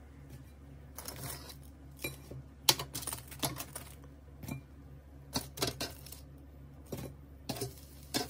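Kitchen tongs clicking and tapping against an air fryer's metal basket and crisp toasted garlic bread slices as the slices are lifted out one by one; a series of irregular clicks, the loudest a little under three seconds in.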